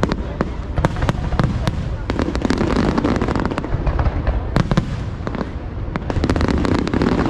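Aerial fireworks going off in quick succession: many sharp bangs and crackles over a continuous low booming.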